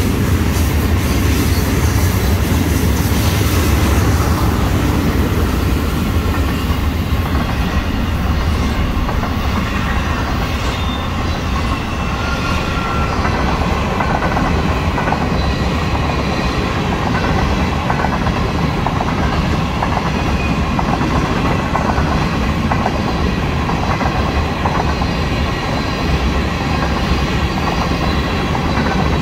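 Florida East Coast Railway freight train's autorack and tank cars rolling past: a steady heavy rumble of steel wheels on rail, with repeated clickety-clack as the wheels cross rail joints.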